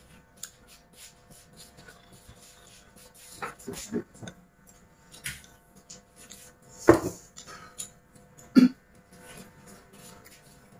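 Eating at the table: chopsticks tapping and scraping against glass bowls, with chewing and slurping. A few louder short sounds stand out, about a third of the way in and twice later.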